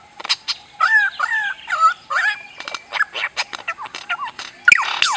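Bird calls: a few short, wavering calls with some clicks, then near the end a fast series of high chirps, each sliding down in pitch.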